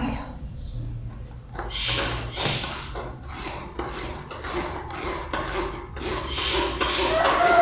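Kitchen utensils clinking and tapping against dishes in a series of short, sharp knocks. A long pitched animal call begins near the end.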